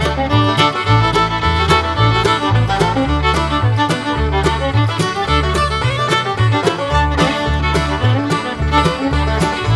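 Upbeat bluegrass-style instrumental music with fiddle and plucked banjo or guitar over a steady bouncing bass.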